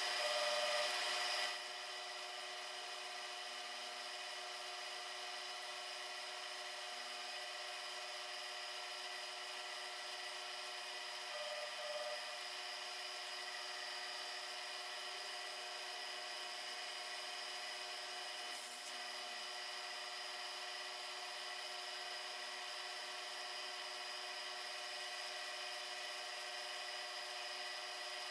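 Mini milling machine spindle running with a steady whine of several tones while a small end mill cuts a slender brass part, louder for the first second or so.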